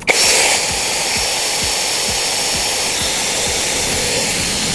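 Electric drill running a drill-driven water pump attachment at steady speed, switched on abruptly with a slightly louder first half second. The pump is struggling to draw any water.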